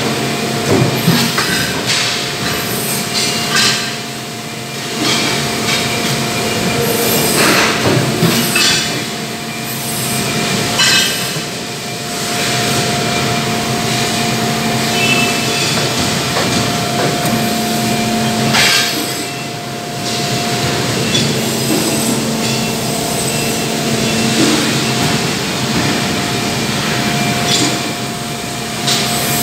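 Industrial machinery running with a steady hum and a steady whine, with irregular metallic clanks and knocks over it.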